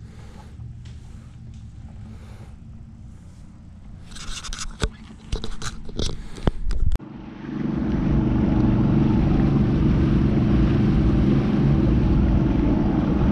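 Knocks and scrapes on a boat deck for a few seconds, then from about seven seconds in a bass boat's outboard motor running steadily under way, with a rush of wind and water.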